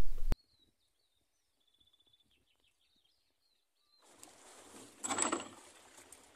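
Faint bird chirping from the shore bush for the first few seconds. Then water sloshing against the catamaran's hull as a ferry wake comes in, with one louder splash about five seconds in.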